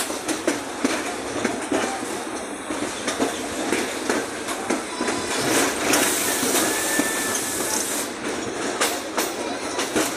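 Toshiba electric commuter train heard from inside the car as it runs along the track: a steady rumble with frequent irregular clicks and clacks from the wheels on the rails. A louder hiss rises over it for about two seconds in the middle.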